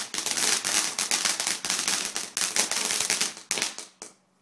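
Ground firework spraying sparks with a dense, rapid crackling that thins out and fades away about three and a half seconds in, as the firework burns out.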